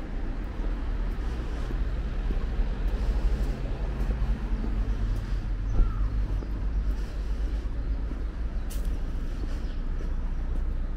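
Steady low rumble of wind on a walking camera's microphone, with a short high chirp about six seconds in.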